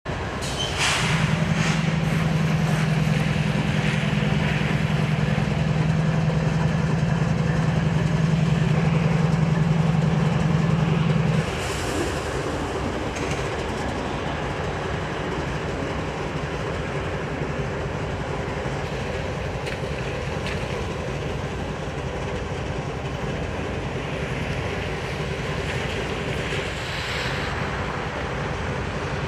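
Union Pacific freight train passing: a loud, steady low hum for about the first ten seconds, which cuts off suddenly, then the steadier rumble and clatter of freight cars rolling by on the rails.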